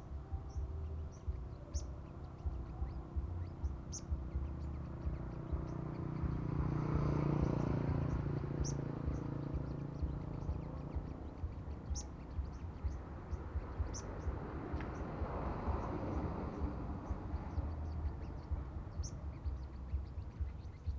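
Sunbird giving short, high, scattered chirps over a steady low rumble. A broad rushing noise swells up and fades between about six and eleven seconds in, and rises again more weakly around fifteen seconds.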